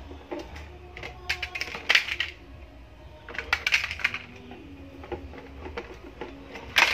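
Small toy cars clattering as they tip out of a plastic toy dump truck's bed onto stone paving: two bursts of rapid clicks and knocks, then one sharp clack near the end.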